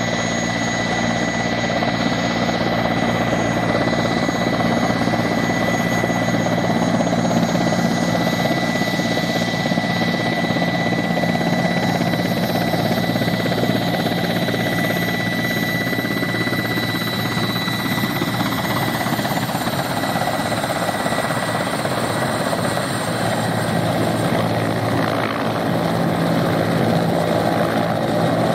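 Mil Mi-8 helicopter taxiing on the ground with its twin turboshaft engines running and main and tail rotors turning: a steady loud rotor and engine roar with a high, even turbine whine.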